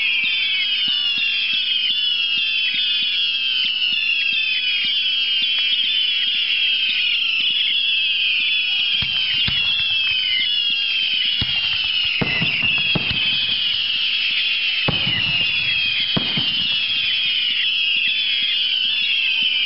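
Fireworks display: a dense stream of overlapping whistling fireworks, each whistle falling in pitch. Several bangs come in the middle stretch.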